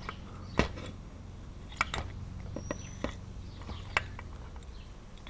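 Small metallic clicks and light scrapes from a Subaru/Robin small-engine carburetor body being turned in the hands while thin steel wire is run in and out of its passages to clear clogs left by old gasoline. About five sharper clicks stand out among the softer handling noise.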